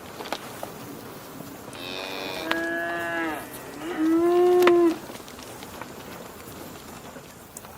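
Cow mooing twice: a longer call about two seconds in, then a shorter, louder, steady-pitched moo just after four seconds. Faint clicks and ticks sit in the background.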